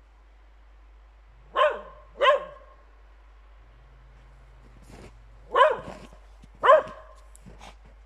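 A dachshund barking: two sharp barks in quick succession, a pause of about three seconds, then two more.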